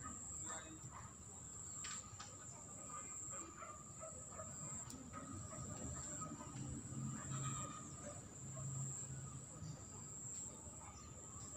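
Insects trilling steadily at a high pitch, with a fainter low hum from a little past the middle until near the end.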